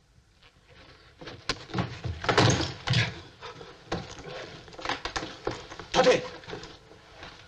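Harsh shouting and guttural cries from men in an old Japanese war film soundtrack, in several loud rough outbursts, with a barked "Tate!" (get up!) about six seconds in.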